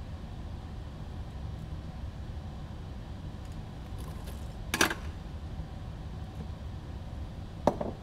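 Two short clatters of small hard tools or parts being handled on a workbench, one about five seconds in and one near the end, over a steady low background hum.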